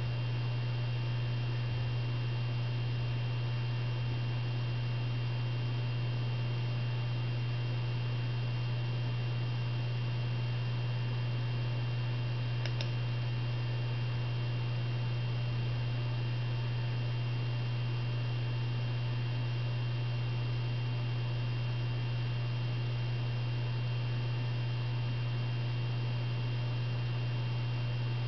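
Steady low electrical hum with a faint high whine above it, unchanging throughout, and one faint click about halfway through.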